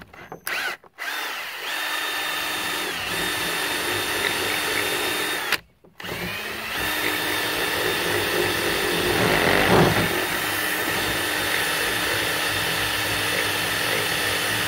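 Cordless drill boring holes in a PVC pipe cap with a 5/16-inch bit: the motor spins up to a steady whine, stops for about a second, then runs again for a long stretch, with a louder grinding of the bit in the plastic partway through the second run.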